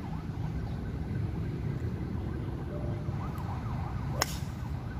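A golf club striking a ball in a full swing: one sharp crack about four seconds in, over a steady low rumble.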